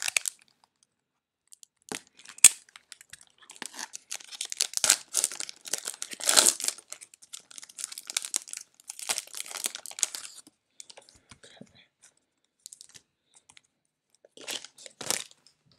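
Plastic wrapper of a trading-card cello pack crinkling and tearing as it is pulled open, in irregular spells of crackling that are loudest about six seconds in. The sound dies down for a few seconds, then one last short rustle comes near the end.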